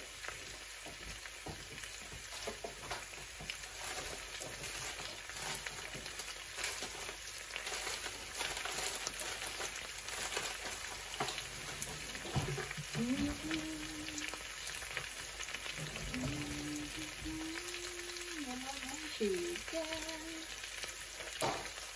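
Chicken thighs with potatoes, carrots and onions sizzling in a frying pan, a steady crackle of fine pops. A voice is heard faintly in the second half.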